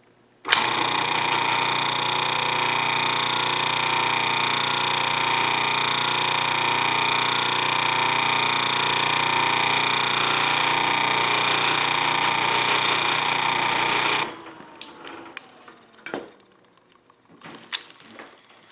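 Washing machine's capacitor-start electric motor running at speed, a steady hum and whine that cuts in abruptly and is switched off about 14 seconds in, its whine falling as it coasts down. A few clicks follow near the end.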